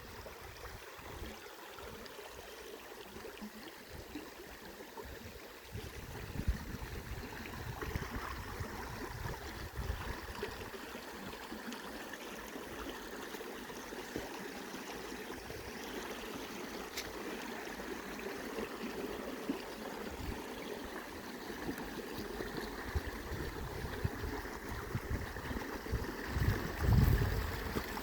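River water flowing over stones, a steady rush with uneven gurgling. Low rumbles come and go, the loudest one near the end.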